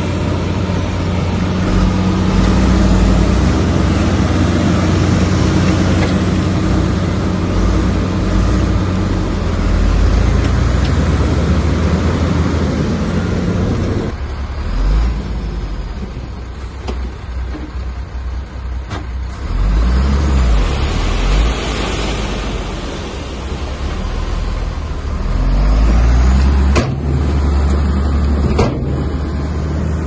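Heavy diesel earthmoving machinery running, a loud steady engine drone that eases off about halfway through. Several sharp metallic knocks come near the end.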